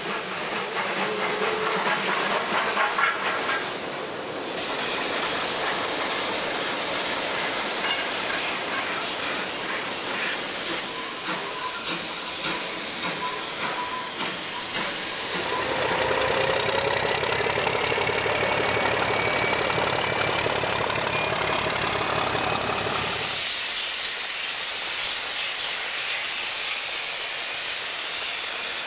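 Steam locomotives heard in several successive shots, with steam hissing loudly. For several seconds in the middle a deeper running sound comes in, its pitch slowly rising, before the scene changes again.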